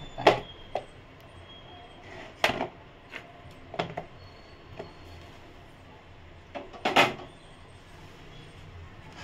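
A utensil knocking and tapping against a bowl while boiled potato is mashed in it: a handful of sharp knocks at uneven intervals, the loudest near the start and about seven seconds in.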